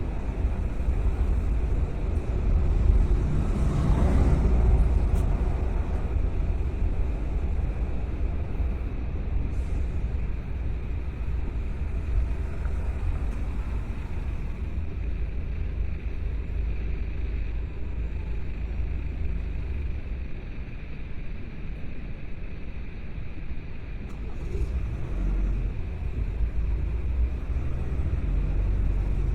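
Car driving through town streets: a steady low rumble of engine and tyres, swelling louder about four seconds in and again near the end.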